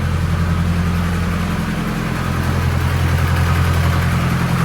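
Turbocharged Nissan KA24DET 2.4-litre inline-four idling steadily while warming up after a fresh start.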